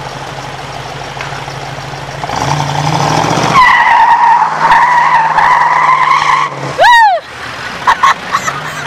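A vehicle engine revs up and its tyres squeal steadily for about three seconds, a burnout, before the squeal cuts off. A short, loud rising-and-falling whoop follows just after.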